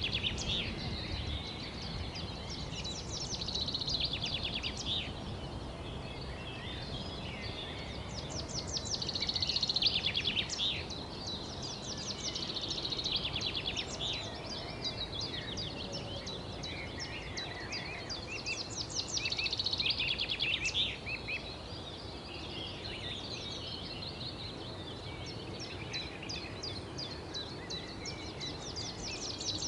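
Songbirds singing, with fast trilled phrases coming every few seconds over a low steady background rumble.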